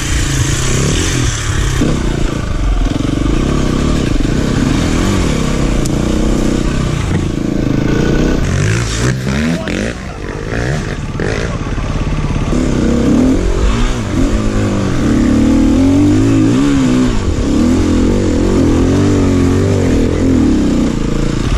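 KTM EXC-F 350 single-cylinder four-stroke enduro bike engine revving hard, its pitch rising and falling with the throttle, with other dirt bikes revving close by. The sound dips briefly about ten seconds in.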